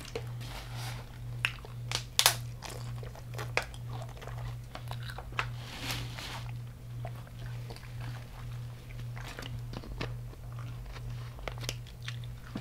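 Close-up chewing and crunching of deep-fried seafood in a crunchy Hot Cheetos crust: many sharp, irregular crunches, over a steady low hum.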